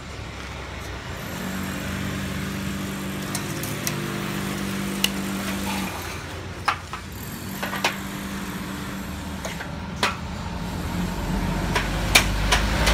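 A machine's motor running with a steady low hum, pausing briefly about halfway, with several sharp clicks and knocks of metal handling scattered through.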